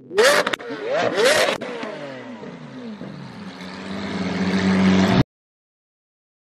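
Lamborghini Aventador V12 revved hard twice in quick sharp blips, the revs falling away after each, then a steady engine note building louder until it cuts off suddenly about five seconds in.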